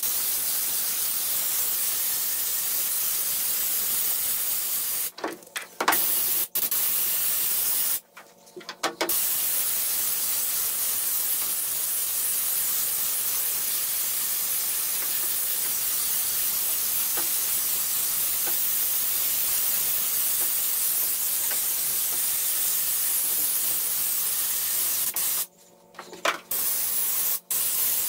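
Compressed-air spray gun spraying Raptor bedliner: a steady hiss of air and spray, broken by short pauses three times as the trigger is let off.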